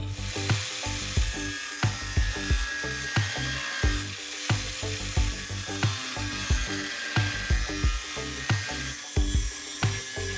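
Angle grinder with a thin cut-off disc cutting through steel plate: a steady high whine and hiss. Background music with a steady beat plays over it and is the loudest thing.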